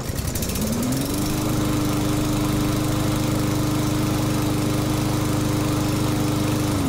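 Briggs & Stratton 550EX single-cylinder OHV lawn mower engine, pull-started. It catches at once and climbs over about a second to a steady governed speed, running smoothly with compression restored after a valve-clearance adjustment. Near the end it is shut off and its speed falls away.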